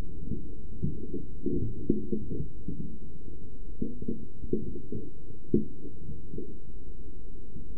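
Muffled low rumble with irregular dull thumps, several in the first half and a few more further on.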